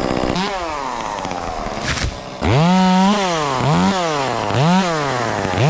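Two-stroke chainsaw revving in bursts: the engine winds down early on, rises briefly, then runs at high revs for about a second from halfway in, followed by three quick blips of the throttle.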